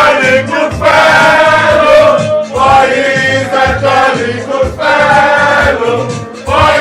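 Music with singing voices over a steady bass beat.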